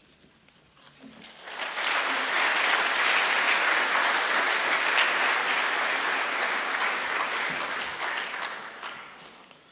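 Audience applauding. It starts about a second and a half in, holds steady for several seconds, then dies away near the end.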